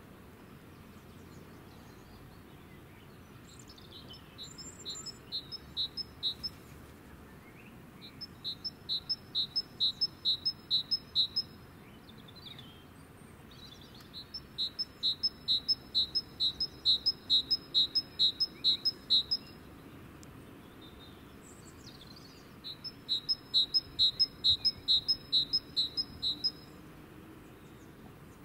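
High-pitched animal chirping in four bouts of a few seconds each, about four evenly spaced chirps a second, with pauses of a few seconds between bouts, over a faint steady background noise.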